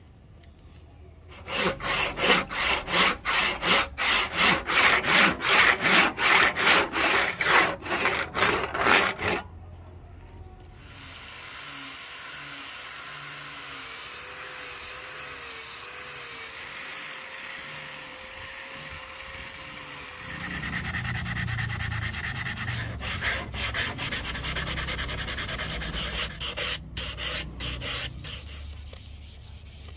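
Woodworking on a padauk axe handle. First a hand tool is worked back and forth on the wood, about three strokes a second, for several seconds. Then comes the steady sound of an angle grinder with a sanding pad on the handle, and some hand sanding near the end.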